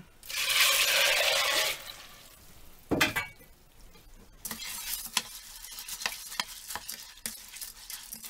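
Water poured from a saucepan onto sunflower seeds in a steel pot, a loud hiss lasting about a second, then a single knock. After that, hands swish and rub the wet seeds in the pot, with many small clicks of seeds against one another and the pot.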